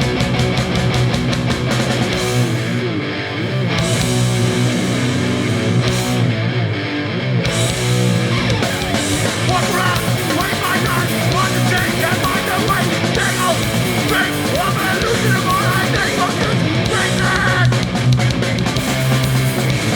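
Hardcore punk band playing live at full volume: distorted electric guitars, bass and drums. The cymbals drop out briefly twice in the first eight seconds, and vocals come in about ten seconds in.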